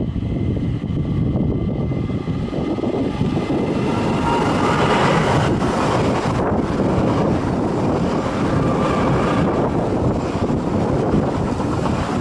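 ÖBB class 4024 Talent electric multiple unit running past close alongside the platform: wheels rumbling on the rails under a steady whine of several tones from its electric drive, louder from about four seconds in as the train draws level.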